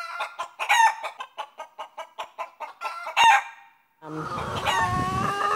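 A rooster clucking in a quick run of about five clucks a second, then, after a short break, crowing in one long drawn-out call that starts about four and a half seconds in.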